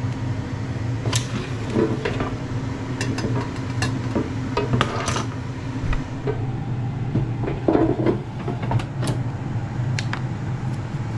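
Stainless bowl knocking and clattering as it is set into a Ninja dual-zone air fryer drawer and the drawer is pushed shut, with a string of sharp clicks and a louder clatter about halfway through. Under it runs the steady hum of the air fryer's fan, the other drawer already cooking.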